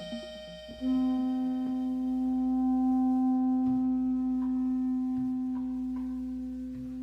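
Exotica instrumental music. About a second in, a loud low note with overtones comes in and is held, with light percussion taps underneath.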